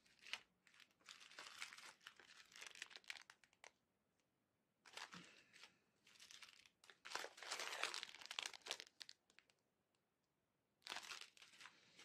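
Faint crinkling of a diamond-painting kit's packaging, clear plastic bags of resin drills, as it is handled. It comes in several short bursts with quiet gaps between them.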